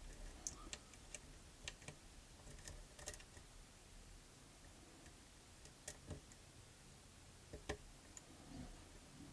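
Faint, irregular clicks and ticks of lock picks working the pins inside a pin-tumbler challenge lock, a few scattered taps seconds apart while the picker searches for a pin he cannot feel.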